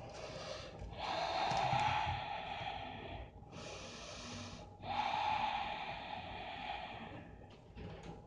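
A woman breathing deeply and audibly while holding a yoga pose: two long, loud breaths, one about a second in and one about five seconds in, with softer breaths between them.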